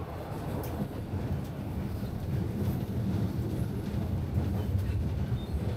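Toronto Line 1 subway train (a Toronto Rocket) running between stations, heard from inside the car: a steady low rumble of the train in motion.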